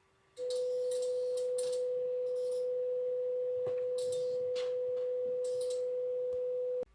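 A single steady mid-pitched tone, an emergency-alert attention tone. It starts about half a second in, holds for about six and a half seconds and cuts off abruptly near the end, with faint patches of hiss behind it.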